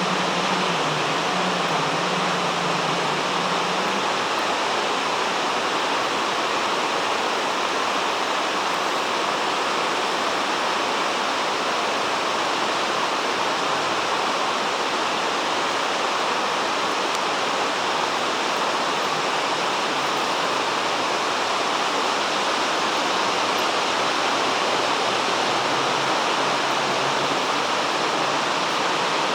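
Iguazú Falls: a waterfall's water pouring down in a steady, unbroken rush.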